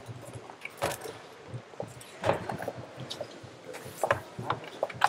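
Scattered knocks, clicks and shuffling from people moving about among wooden church pews, with a few louder bumps.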